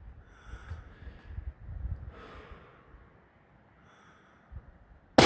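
Low rumble and faint breathing, then a single rifle shot near the end, sudden and loud, dying away in a long echoing tail.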